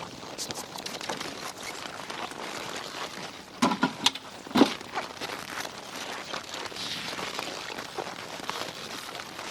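Hay rustling and crackling as horses are fed by hand, with a few louder knocks a little under four to about four and a half seconds in.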